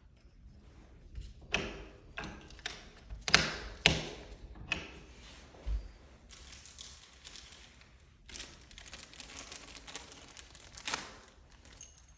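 Sharp clicks and knocks of small door hardware being handled and fitted into an interior door, the loudest in the first few seconds. Scratchy rustling and a few lighter clicks follow.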